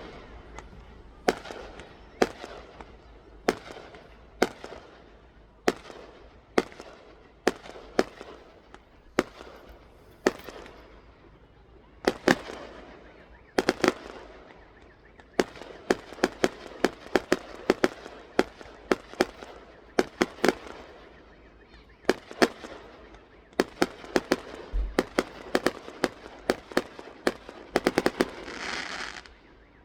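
Fireworks exploding: a long, irregular series of sharp bangs, one or two a second and coming thicker in the second half, each trailing off in a short echo. Near the end there is a hissing burst.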